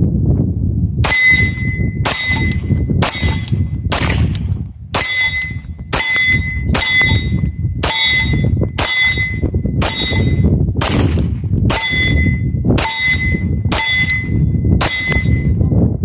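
SIG P226 Legion pistol fired in a steady string of shots, roughly one a second, each followed by the ring of a hit steel target plate. Wind rumbles on the microphone throughout.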